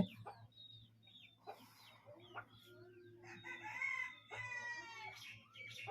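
A rooster crowing faintly: a few short calls, then one long crow starting about three seconds in.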